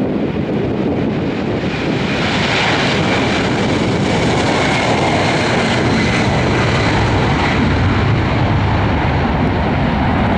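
Boeing 747 Dreamlifter's four turbofan engines at takeoff thrust as the jet rolls down the runway and lifts off. A loud rushing jet noise with a steady high whine swells about two seconds in and then holds, over a low rumble.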